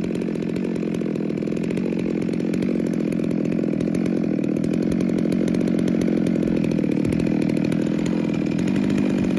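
FarmMac F660 chainsaw, a Stihl 660 clone with a two-stroke engine, running steadily at full throttle while cutting into a large log.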